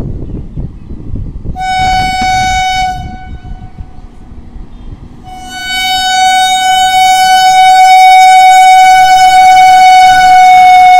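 Horn of a WAP-4 electric locomotive: a short single-note blast about two seconds in, then a long steady blast from about five seconds on as the train pulls out and approaches.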